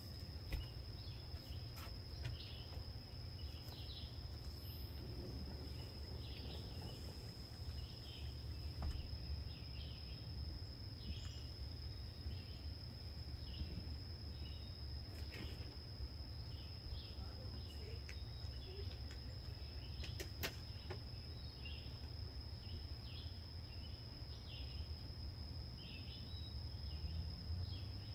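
Backyard woodland ambience: a steady high-pitched insect drone, with short chirping calls repeating roughly once a second over a constant low rumble.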